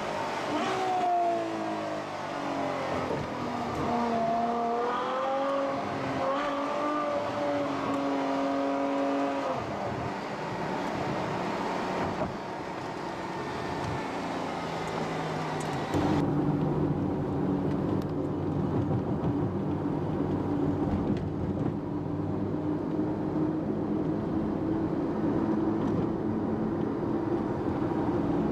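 Ferrari F12 Berlinetta's 6.3-litre V12 heard from inside the cabin while driving. Over the first ten seconds its pitch falls and climbs in steps through the gears. About two-thirds of the way in, the sound changes suddenly to a steady, duller drone at an even engine speed.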